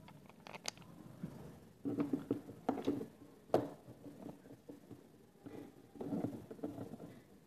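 Small hardware being handled against a scooter's plastic inner cover: scattered clicks, taps and scrapes as a bolt and nut are fitted by hand. The sharpest click comes about three and a half seconds in.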